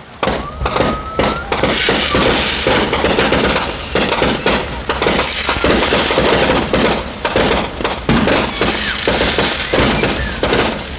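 A dense barrage of aerial fireworks going off, loud bangs and crackling coming one after another with hardly a pause.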